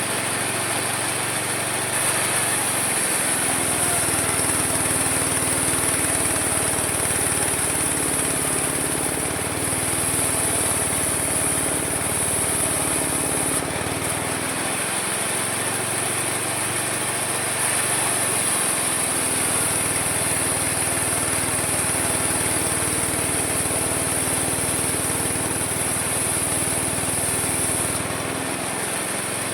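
Homemade mini sawmill running and sawing through wood: a loud steady machine noise with a high, hissing cutting sound. The pitch and load shift a couple of seconds in, again around halfway, and near the end.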